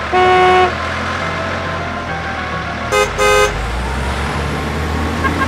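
A vehicle engine running steadily, with a horn sounding over it: one half-second toot near the start, then two short toots in quick succession about three seconds in.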